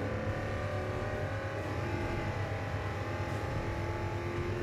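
Car engine sound running at fairly steady revs, laid over a diecast car racing on the track.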